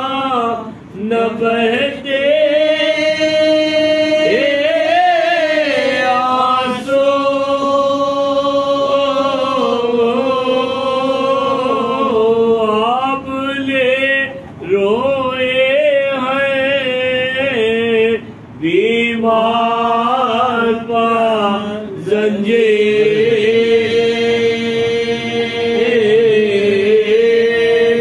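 A group of men's voices chanting a Muharram mourning elegy without instruments, in long held notes that slide between pitches, with a few short breaks for breath.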